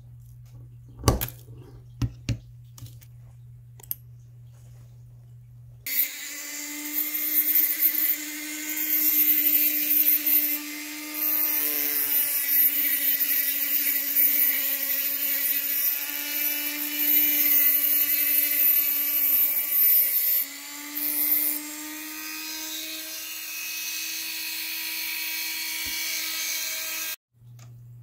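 A few sharp clicks of pliers working a small metal hinge piece, then a rotary tool with a small cut-off disc cutting a small piece of sheet metal: a steady high-pitched whine with a grinding hiss, dipping briefly a few times as the disc bites, then stopping suddenly near the end.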